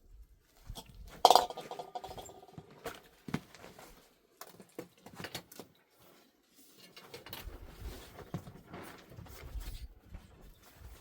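Scattered knocks and clinks of objects being handled, with one sharper metallic clink about a second in that rings briefly; dull low thuds follow in the second half.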